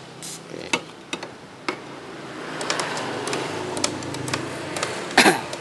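Switch on a Pioneer double-cassette radio being slid back and forth after a spray of cleaner: irregular clicks and scratchy crackling, densest in the middle, with one louder burst near the end. The crackle is the sign of dirty, rusty switch contacts.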